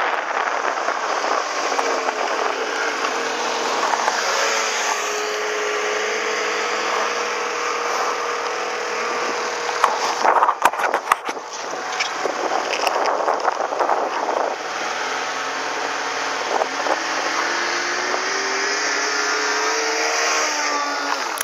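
Snowmobile engine running at speed, heard from the rider's seat with heavy wind rush over the microphone; its pitch sinks and then climbs with the throttle, rising again near the end. About ten seconds in there is a short cluster of sharp knocks and crackling.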